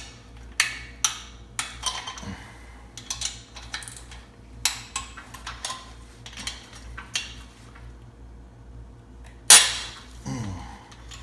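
A socket wrench and metal tools click and clink irregularly as the cylinder head nuts of a Volkswagen 1600 dual-port engine are loosened. There is one much louder sharp metallic crack about nine and a half seconds in.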